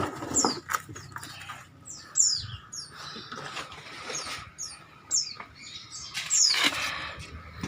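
A bird chirping over and over, short high calls that slide down in pitch, while packing is rustled and handled with scattered clicks.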